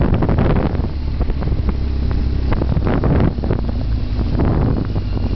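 BMW R1200GS's boxer-twin engine running steadily on the move, mixed with heavy wind noise buffeting the microphone.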